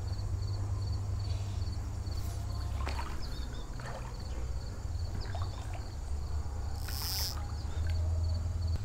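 Creek water moving around a wading angler's legs: a steady low rumble with small splashes, and a short hiss near the end.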